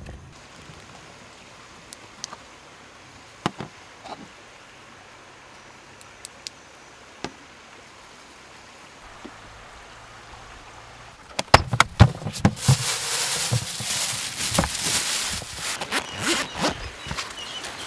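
Quiet campsite ambience with a few sharp clicks, then about two-thirds of the way in a run of loud clicks and clatter followed by dense rustling from gear being handled, with bird chirps faintly repeating near the end.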